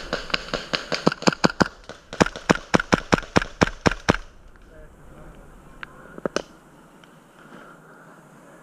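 Airsoft fire: a rapid string of sharp cracks, about four or five a second, that stops about four seconds in, followed by two lone clicks a couple of seconds later.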